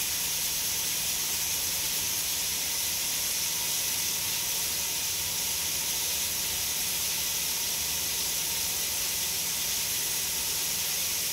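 Water running steadily from a kitchen faucet into the sink, an even hiss.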